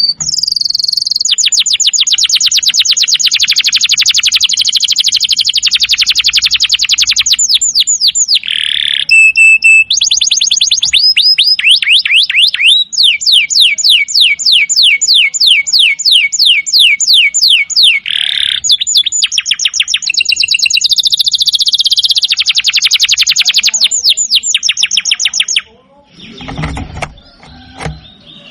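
Domestic canary singing: long, fast trills of rapidly repeated high notes that switch to a new phrase every few seconds. The song breaks off near the end, and softer, lower sounds follow.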